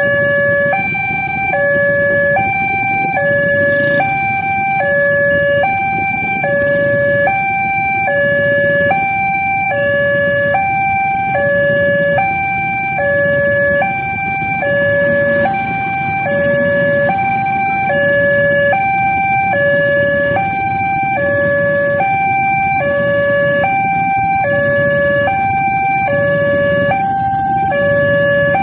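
Electronic railway level-crossing warning alarm sounding a two-tone hi-lo signal, about one high-low pair a second, warning that a train is approaching the crossing.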